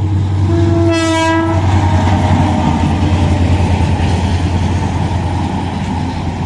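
Passing train's locomotive sounding its horn once for about a second near the start, followed by the steady low rumble and wheel noise of the train running past.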